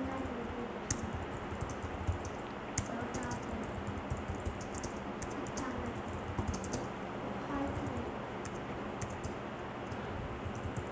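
Typing on a computer keyboard: irregular runs of key clicks.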